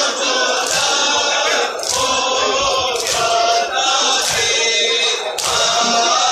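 Large crowd of men chanting a Muharram mourning lament (noha) together, with a sharp stroke about once a second marking the beat.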